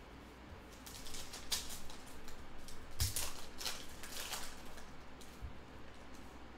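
Foil wrapper of a basketball trading-card pack crinkling and tearing as it is ripped open and the cards are slid out, loudest around the middle, with a light knock about three seconds in.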